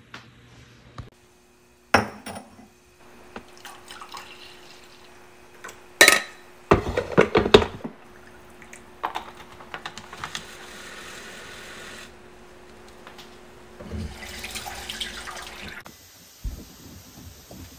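Kitchen sounds: knocks and a clatter of dishes on a countertop, loudest about six seconds in, then liquid pouring, over a faint steady hum.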